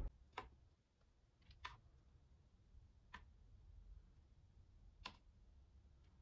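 Near silence broken by about four faint, scattered clicks of small hard objects.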